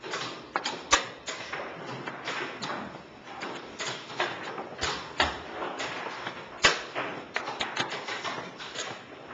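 Chess pieces being set down and moved on a board in quick play: a string of sharp, irregular knocks and taps, the loudest about two-thirds of the way through.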